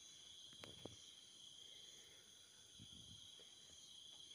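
Near silence with a faint, steady high-pitched drone made of several tones, and two soft clicks within the first second.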